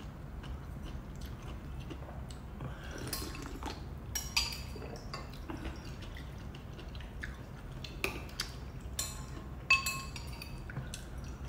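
Metal spoons clinking against ceramic soup bowls, with sipping and chewing as hotpot broth and food are eaten; the sharpest clink comes near the end. A low steady hum runs underneath.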